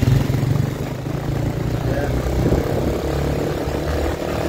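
Motorcycle engine running steadily while riding. Its pitch drops about a second in and then holds steady at the lower note.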